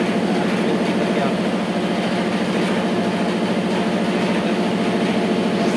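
Steady, loud drone of running factory machinery, a low hum with a fast, even pulse to it and a few steady higher tones over it, unchanging throughout.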